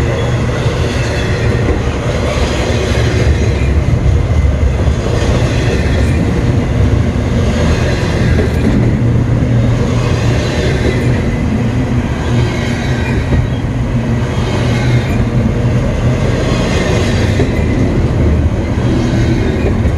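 Norfolk Southern freight train rolling past, loud and steady: a heavy low rumble from the wheels on the rails, with a rattle from the cars coming back every second or two.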